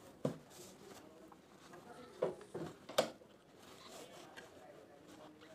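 Cloth rustling as fabric is handled at a sewing machine, with four sharp clicks or knocks; the loudest comes about three seconds in. The machine is not stitching.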